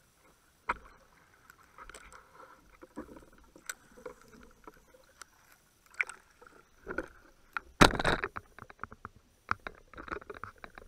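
Water splashing and irregular knocks and bumps of gear against an inflatable boat's rubber hull as a spearfisher comes aboard from the water, with one loud splash-and-clatter about eight seconds in followed by a quick run of small knocks.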